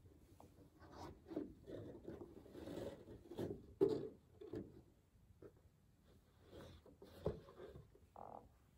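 Faint handling sounds: the lid of a cardboard gift box being lifted off and soft cloth pieces being pulled out and rustled and slid over carpet, with a couple of soft knocks.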